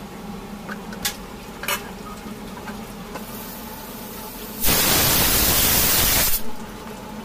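A loud, even hiss of steam lasting about two seconds, starting a little past halfway, typical of a pressure cooker venting on the stove. A few faint clicks come before it, over a steady background hum.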